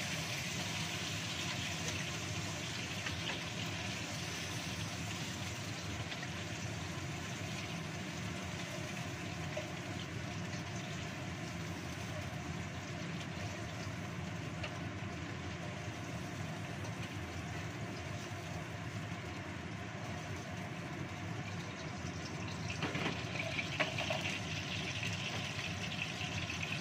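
Gas stove burner flame burning steadily. Near the end a wok knocks onto the burner and a little oil in it starts to sizzle.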